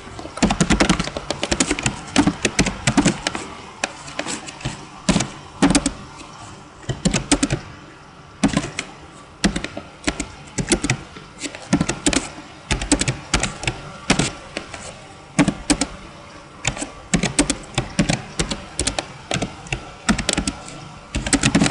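Computer keyboard being typed on, keys clicking in quick irregular runs with short pauses between them.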